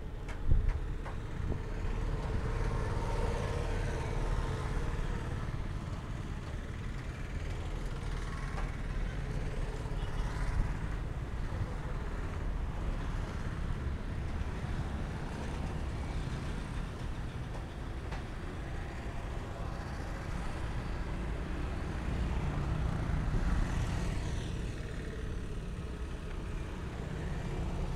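Roadside traffic ambience: motorbikes, auto-rickshaws and cars going by on the road, over a steady low rumble, swelling a little as vehicles pass.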